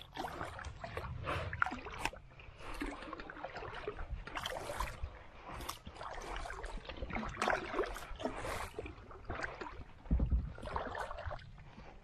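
Small boat being paddled across a lake: irregular splashing strokes in the water, with a low buffet on the microphone about ten seconds in.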